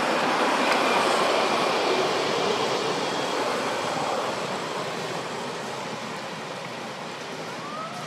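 Steady rushing noise that slowly fades away, with a brief rising squeak near the end.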